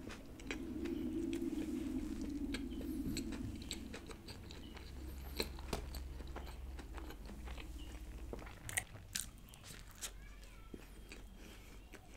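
Close-miked biting and chewing of a McDonald's chicken burger: soft crunches and wet mouth clicks scattered throughout. A low steady hum from construction work sits under the first four seconds or so.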